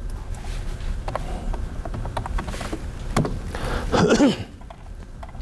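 Computer keyboard typing and mouse clicks as a new search is entered, over a steady low room hum. About four seconds in comes a brief pitched vocal sound, the loudest moment.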